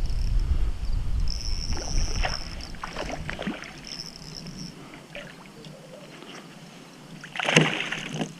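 Water and handling noise around a kayak on a river: a low rumble that fades out, a few knocks, then one loud splashing rush about seven seconds in. Insects buzz in a steady high band that starts and stops during the first half.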